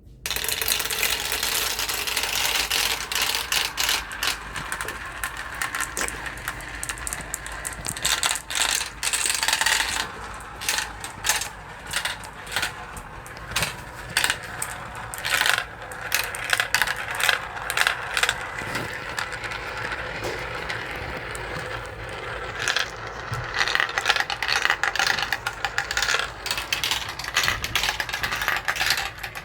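Marbles rolling and clattering down a marble run: a continuous rattle of many small sharp clicks, with clusters of louder clacks coming about once a second through the middle and again near the end.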